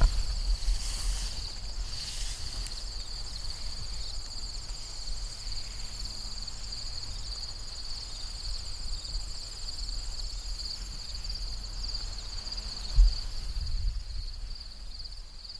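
A steady, high-pitched chorus of insects trilling in a field, over a low rumble, with one soft thump about 13 seconds in.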